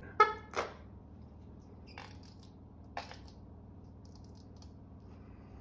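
Plastic squeeze bottle of ketchup being squeezed onto a sausage in a bun. There are two short pitched squirts about half a second apart right at the start, then two light clicks about a second apart.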